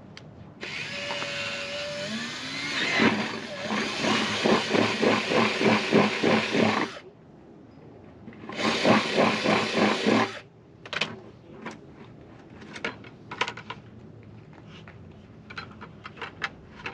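Power drill boring an exit hole through a white plastic bucket: one run of about six seconds, then a second shorter burst of about two seconds, followed by a few faint clicks.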